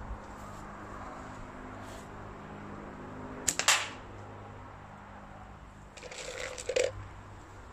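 A slingshot test rig with latex bands fires: a sharp snap as the bands are released, with a second crack a fraction of a second later. About six seconds in comes a brief clatter of slingshot balls being picked out of a plastic tub.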